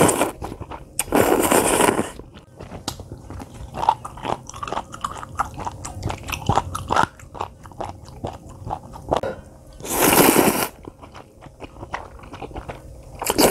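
Eating close to the microphone: loud slurps of instant ramyeon noodles near the start, again about ten seconds in and at the end, with chewing and many small mouth clicks between.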